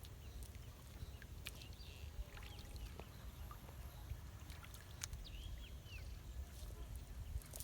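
Quiet outdoor ambience: a steady low rumble with scattered small clicks and a few faint, short high bird chirps, twice in the middle.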